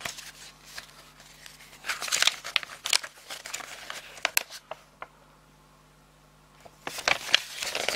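Paper pages of an instruction booklet being handled and turned by hand: bursts of rustling and page flaps, with a quiet pause of a second or two before more rustling near the end.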